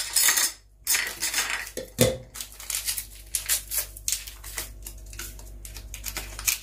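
Kitchen utensils and dishes clinking and knocking as they are handled: a string of short sharp clicks, with a heavier thump about two seconds in.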